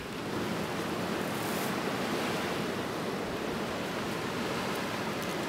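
Steady wash of surf on a sandy beach, an even hiss with no breaks.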